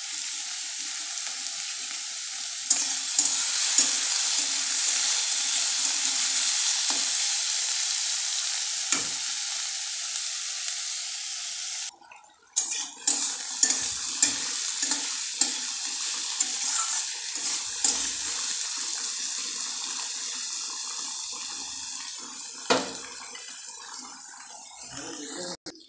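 Bitter gourd and pumpkin pieces sizzling in hot mustard oil in a metal kadai over a medium gas flame, with a spatula stirring and scraping through them and now and then knocking against the pan. The sizzle drops out briefly about twelve seconds in.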